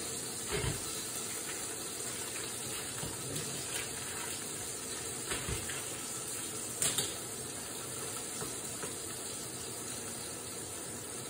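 Burger patty sizzling in a frying pan, a steady hiss, with a few soft knocks from handling cheese and a knife at the counter.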